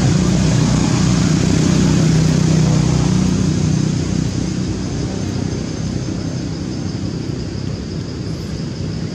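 Steady low motor rumble, a little louder for the first four seconds, then easing slightly.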